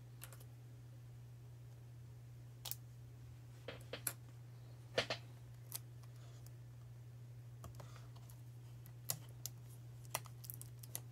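Adhesive tape being handled and pressed down over wiring on the car stereo's chassis: irregular small clicks and crinkles, the loudest about five seconds in, over a steady low hum.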